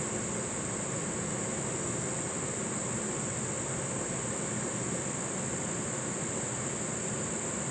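Steady, high-pitched chorus of insects calling without pause, over a low, even background rumble.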